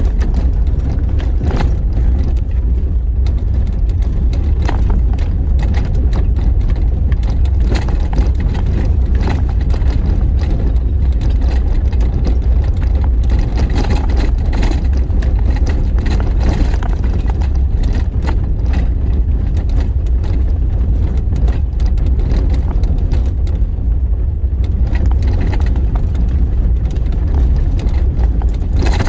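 A 4x4 vehicle driving on a rough, bumpy dirt road: a steady low rumble of engine and tyres, with scattered knocks and rattles from the bumps.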